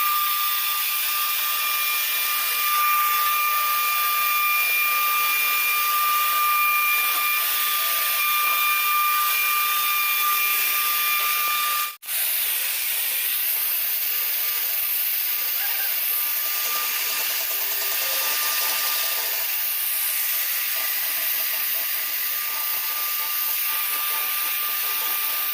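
1325-size CNC router running: a steady high whine over a loud hiss, cutting out for an instant about halfway through.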